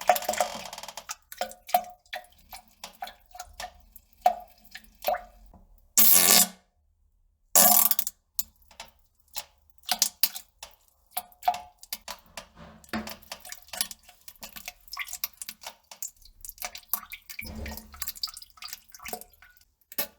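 Irregular wet drips and small plops into water, with two louder splashy bursts about six and eight seconds in and a second of silence between them.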